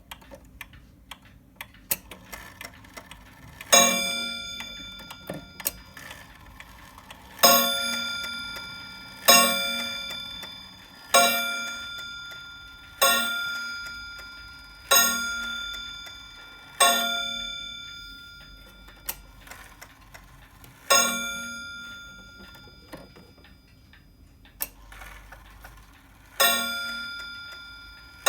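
Meister Anker 31-day clock striking: about nine single ringing strokes, each dying away slowly, mostly about two seconds apart, with longer pauses between the last few. Faint ticking runs between the strokes.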